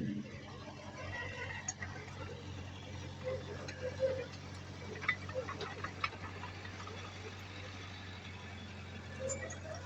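Heavy-equipment diesel engine running steadily at a low pitch, with scattered metallic clicks and knocks between about three and six seconds in.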